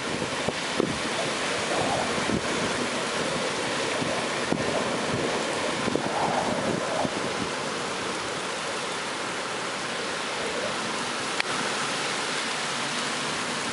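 Heavy rain pouring down as a steady hiss, with scattered ticks and one sharp click about eleven seconds in.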